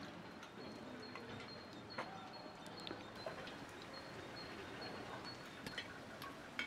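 Quiet rural outdoor ambience with a thin, high steady tone that comes and goes, and a few sharp light clicks.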